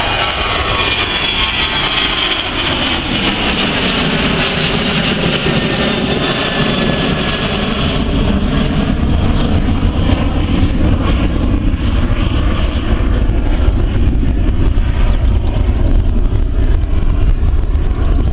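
A Boeing 737-800's twin CFM56 turbofans at takeoff thrust as the jet climbs away, a loud, steady roar. About halfway through, the high hiss fades and a deeper rumble takes over.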